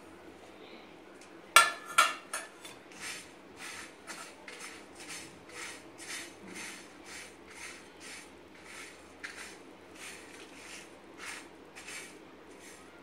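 Spices and curry leaves being stirred and scraped across a dry iron tawa while roasting: a steady rhythm of short scraping strokes, about two a second, after two sharp clatters about a second and a half in.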